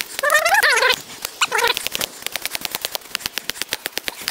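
Dead blow hammer tapping a wooden stake into garden soil in fast, light strokes, about seven a second. A cat meows twice in the first two seconds.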